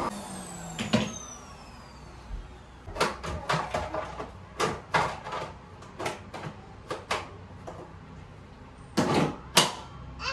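A high whine falling in pitch at the start, then a scattered string of sharp clicks and knocks from a canister vacuum cleaner being handled, with two louder knocks near the end.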